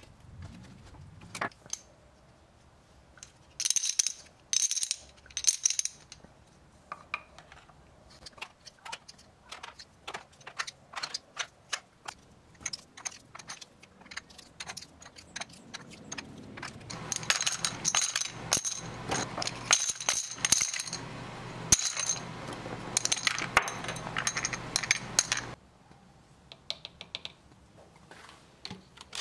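Poker chips with metal cores clicking and clattering against each other and a plastic tub as they are handled and set in place, in many quick, irregular taps. For several seconds in the second half a steady hiss runs under the clicking.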